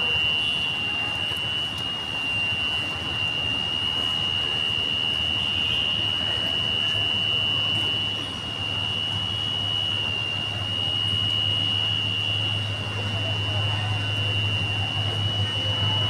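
Level-crossing warning buzzer sounding one steady, unbroken high-pitched tone, over a low hum that grows louder from about halfway through.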